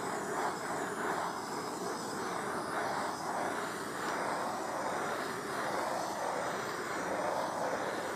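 Handheld gas canister torch burning with a steady rushing hiss that swells and fades gently as the flame is swept back and forth over wet epoxy. It is flashing over alcohol speckled onto the uncured resin to open up the soapstone pattern.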